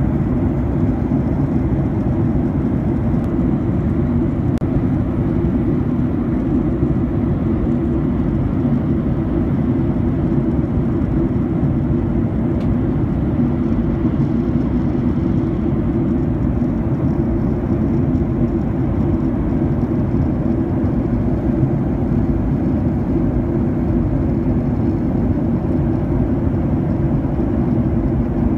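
Aircraft cabin noise in flight: a steady low drone of engines and rushing air that does not change.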